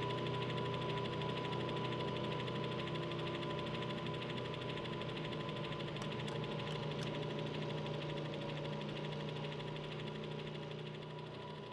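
A steady mechanical hum with a thin high whine running through it, slowly fading toward the end, and a few faint ticks about six to seven seconds in.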